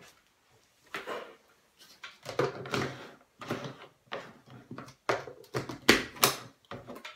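Plastic blender jug and its lid being handled: a run of irregular clicks and knocks as the lid is pressed and fitted onto the jug.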